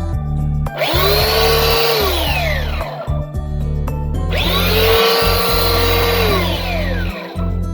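Chicago Electric 3-by-21-inch belt sander run twice in short bursts: each time the motor spins up to a steady whine, runs for about a second and a half, then winds down as it is switched off. Background music plays underneath.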